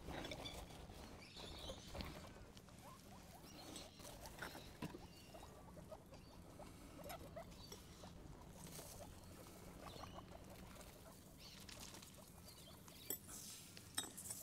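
Guinea pigs faintly chattering and scurrying: scattered small clicks and short squeaks.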